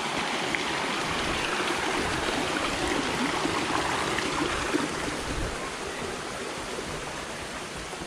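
Stream water running over rocks: a steady rush.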